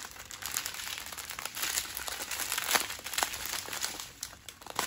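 Clear plastic zip-lock bags of diamond painting drills crinkling as they are handled, a rapid run of small crackles that eases off near the end.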